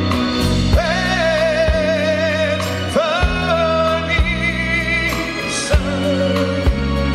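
A live band playing a slow song: a male lead singer holds long notes with vibrato over bass, guitars, piano and drums.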